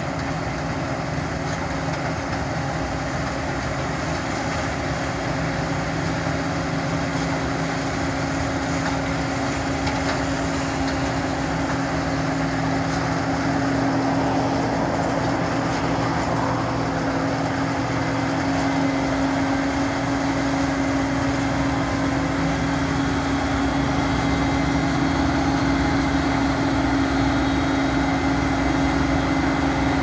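John Deere 2058 combine harvester cutting wheat: its diesel engine and threshing machinery running with a steady hum over a dense mechanical rush, growing gradually louder as the machine comes close and passes.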